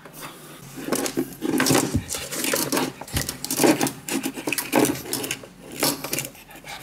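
Pug puppy gnawing on a power cord and plug at a metal floor-lamp base: irregular bouts of scraping and clicking as the plastic is chewed and knocks against the metal.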